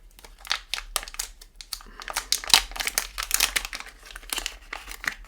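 A plastic parts bag crinkling and crackling as it is handled and opened, in quick irregular crackles throughout.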